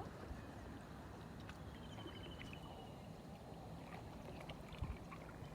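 Faint outdoor ambience: a steady low rumble, with a short high trill of repeated bird-like notes about two seconds in.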